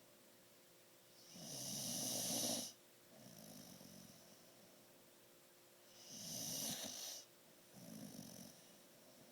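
A sleeping pet snoring: two loud, rasping snores a few seconds apart, each followed by a softer, shorter breath.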